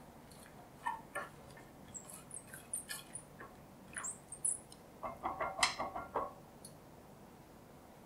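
Coated wire whisk stirring hot milk and melted chocolate in a stainless steel saucepan: the wires click and squeak against the pan, busiest about five to six seconds in, then stop.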